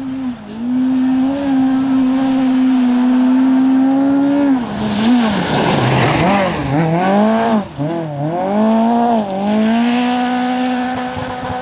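Citroën C2 R2 rally car's four-cylinder engine held at high revs as it comes along the gravel road. It passes close by about halfway through with a rush of noise, then the revs drop and climb several times before holding high again as it pulls away.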